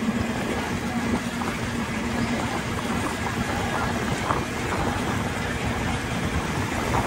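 Steady running noise of the Harbour Hopper amphibious tour vehicle, heard from aboard, with faint voices in the background.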